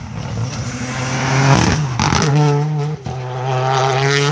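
Rally car engine at full throttle on a closed country-road stage, swelling loudly as it comes past. About three seconds in there is a brief break at a gear change, and the engine then revs up again with rising pitch.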